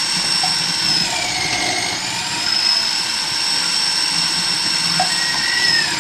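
Kenwood food processor motor running at speed with a high whine as it grates Japanese quince fruit through its grating disc. The pitch sags about a second in, recovers about a second later, and dips slightly again near the end.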